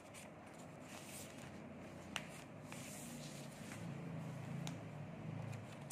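Faint rustling of notebook paper being moved and pages being turned, with a few light taps, over a low steady hum.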